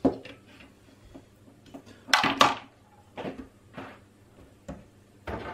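Small hard tools being set down on a workbench: a soldering iron put back and a spool of solder placed down, heard as a series of clicks and knocks, the loudest pair about two seconds in.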